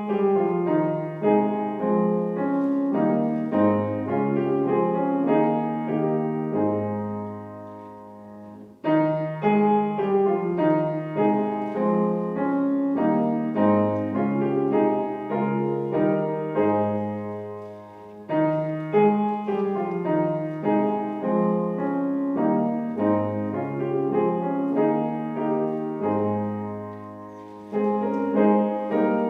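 Solo piano playing a slow, hymn-like melody with chords, in phrases that each fade away before the next begins, about three times.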